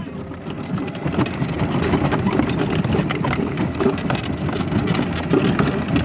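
Small wheels of a homemade miniature toy truck rolling over a rough road: a steady, uneven rumble with scattered small clicks and knocks.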